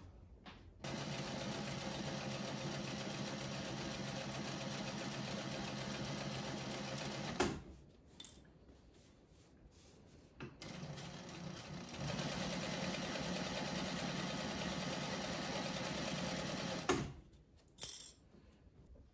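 Juki industrial sewing machine stitching along a folded fabric strap in two steady runs of about six seconds each, with a short pause between them. The second run starts quieter and speeds up about a second and a half in. A few small clicks and handling noises come in the pause and after the second run.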